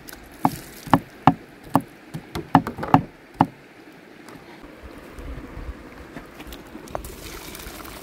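A broad kitchen knife chopping garlic cloves on a wooden cutting board: about nine sharp knocks in quick, uneven succession, stopping about three and a half seconds in. After that, a river runs steadily underneath.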